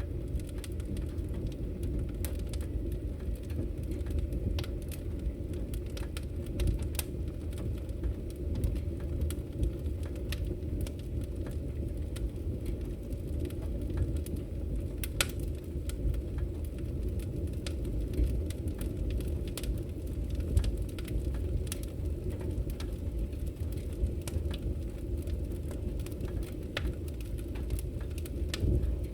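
Wood fire burning in a fireplace: a steady low rumble of flames with scattered sharp crackles and pops from the burning logs, one louder pop about halfway through.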